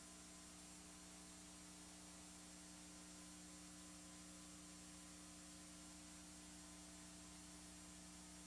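Near silence: a faint, steady hum with hiss.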